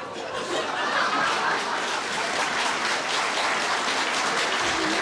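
Theatre audience applauding and laughing, a steady spatter of many hands clapping at an unbroken level.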